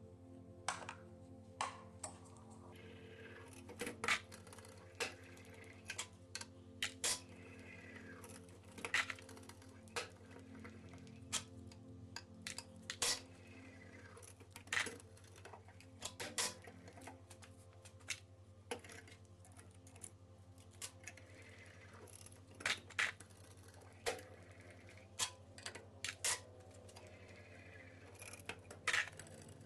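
Hand tools and metal engine parts clinking and knocking as an engine is taken apart on the bench: irregular sharp clicks, roughly one every second, over a low steady hum.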